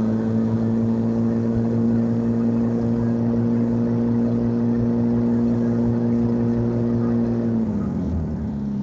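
A motor engine running at a steady high speed, then slowing, its pitch falling near the end.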